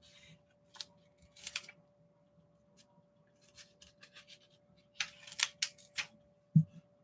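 Pages of a small spiral-bound paper notepad being flipped and handled, in several short crisp rustles, with a brief low thump near the end.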